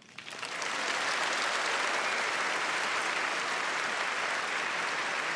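Audience applauding: dense clapping that swells over the first second, holds steady, then cuts off suddenly near the end.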